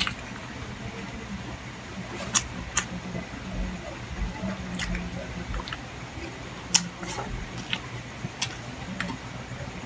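A person eating chicken liver and gizzard adobo: close-up chewing with about eight sharp clicks and smacks scattered through, over a steady low hum.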